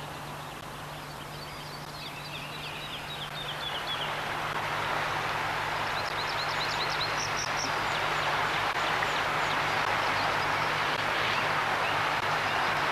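Small birds chirping over the rushing of a shallow river. The rush of water swells about four seconds in and then holds steady.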